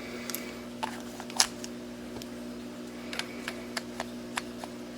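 Irregular light clicks and taps from a small aluminium LED flashlight and its AAA battery parts being handled, the loudest about a second and a half in, over a steady low hum.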